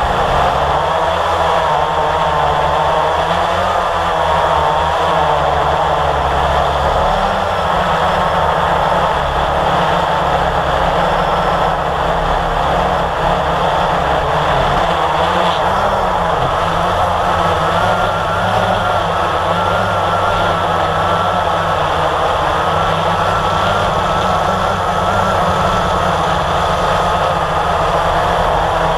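Blade 350 QX quadcopter's brushless motors and propellers whining steadily, the pitch wavering up and down as the throttle changes, picked up by its onboard camera.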